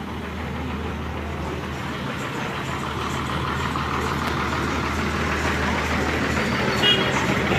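Diesel bus engine idling close by, a steady low hum under street noise and people's voices. A brief high-pitched tone sounds about seven seconds in.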